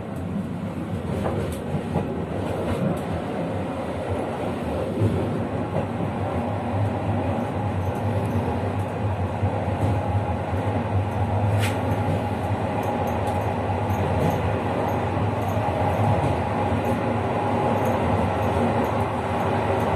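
Passenger train running along the track, heard from aboard: a steady rumble of wheels on rail with a few sharp clicks, growing slightly louder toward the end.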